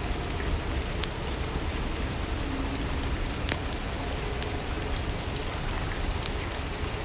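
Steady rainfall ambience, an even hiss with scattered sharp ticks.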